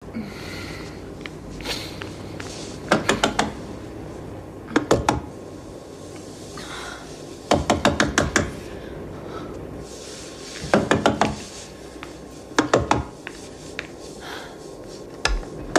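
Short bursts of rapid mechanical clicking, three to seven sharp clicks in quick succession at a time, repeating about every one to three seconds over a steady low background.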